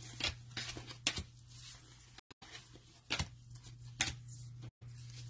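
Trading cards being handled, with four short, soft clicks and taps spaced over a few seconds, over a steady low electrical hum.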